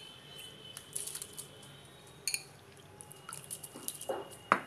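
Handfuls of soaked basmati rice dropping into a pot of hot water, with wet squelching and small splashes. There is a ringing metal clink about halfway through and a sharper knock near the end.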